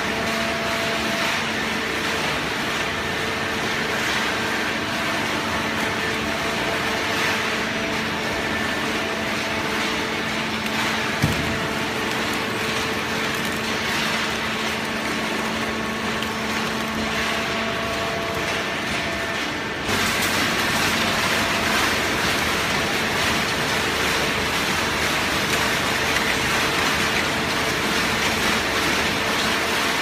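Automatic horizontal cardboard baler running: a steady industrial drone with a low hum from its motor and hydraulic pump, and one sharp knock about a third of the way in. About two-thirds of the way through the noise steps up and turns harsher, and stays so.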